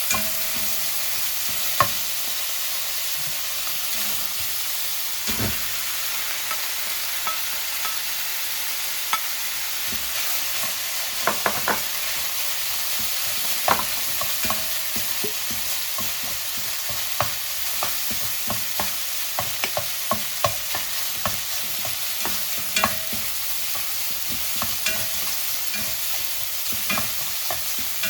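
Fried rice sizzling steadily in a hot pan while it is stirred, with irregular clicks and taps of the utensil against the pan.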